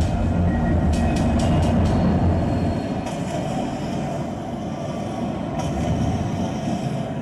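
Train-like sound design from a projection show's soundtrack: a heavy rumble with a quick run of metallic clicks about a second in, thinning after about two seconds into a steady hiss.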